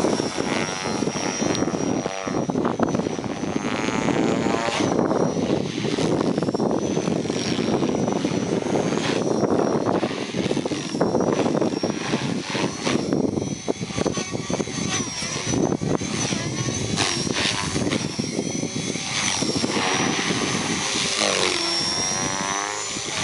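Align T-Rex 470LM electric RC helicopter flying 3D manoeuvres: a high, steady whine from its motor and gears that dips briefly and recovers again and again as the head is loaded, over a steady rushing noise.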